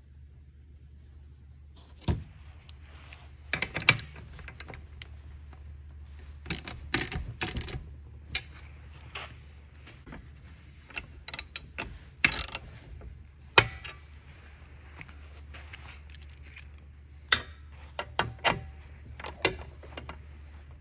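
Hand socket ratchet clicking and steel parts clinking as bolts are fitted and tightened on a headlight assembly's support brackets. The clicks and knocks come in irregular clusters over a steady low hum.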